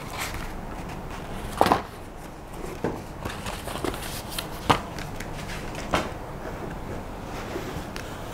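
Cardboard packaging being handled while unboxing: a rigid box's black insert lifted out and a card folder turned over, with several sharp knocks and taps of cardboard against the box and table.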